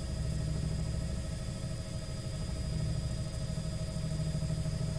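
Helicopter engine and rotors running steadily: a strong low rumble with a faint, high, steady whine above it.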